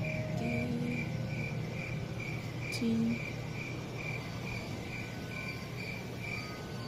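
Cricket chirping: a short chirp at one pitch repeated evenly, about two and a half times a second, stopping shortly before the end, over a low steady hum.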